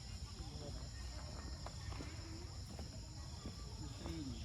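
Outdoor ambience: a steady high insect drone over a low rumble, with a few short, faint calls scattered through.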